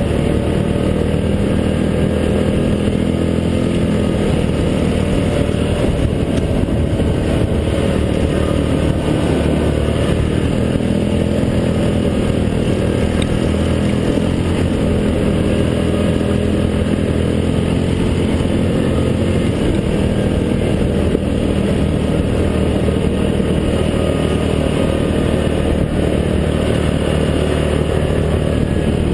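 ATV engine, likely the single-cylinder engine of a Yamaha Grizzly 700 quad, running steadily while riding, its pitch shifting slightly up and down with the throttle.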